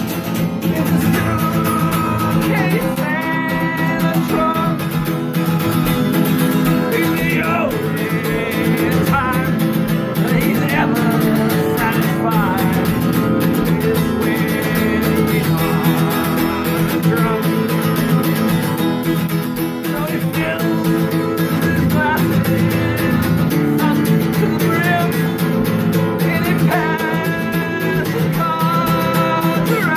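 Acoustic guitar music played steadily, with a singing voice wavering over it at times.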